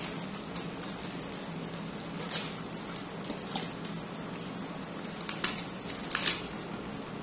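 Small cardboard drink cartons and their plastic wrap being handled, giving a few short crinkles and taps over a steady low hum; the loudest comes about six seconds in.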